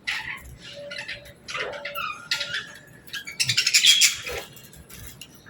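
Budgerigars chirping and chattering in quick short calls, with a denser, louder burst of chatter about three and a half seconds in.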